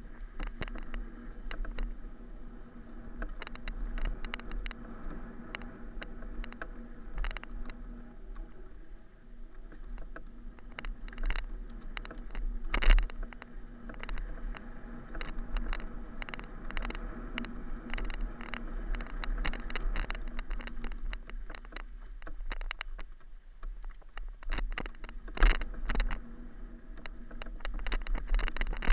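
Continuous rattling and knocking with frequent sharp clicks over a steady low hum, as from a mountain-bike-mounted camera bouncing along a rough dirt trail. The sharpest knocks come about 13 and 25 seconds in.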